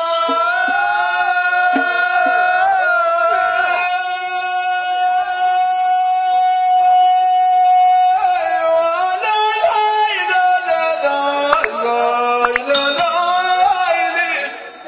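A man singing a verse of tanddamt, Amazigh improvised sung poetry, into a microphone. He holds one long, steady note for about eight seconds, then moves into a more ornamented line that falls lower in pitch near the end.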